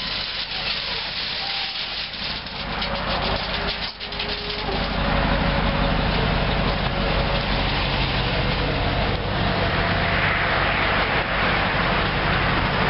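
Running engine of a 2007 Chevrolet Silverado 3500 HD, its 6.0L V8 gas engine, with a hiss over it. It gets louder about five seconds in and stays steady after.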